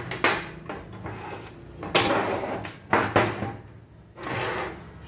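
Metal parts of a car air-conditioning compressor and hand tools being handled on a workbench: a handful of separate knocks, clunks and scrapes as the compressor body is moved and set down and tools are laid on the bench.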